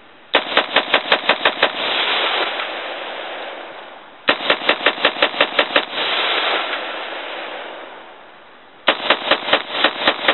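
QS Penna M7 AR-pattern rifle firing 55-grain Fiocchi cartridges in three rapid strings of about ten shots each, at roughly seven shots a second. The strings come at the start, about four seconds in, and near the end. An echo rolls away after each string.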